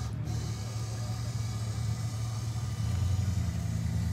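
Boat outboard motor running steadily, with a low drone that gets louder about three seconds in.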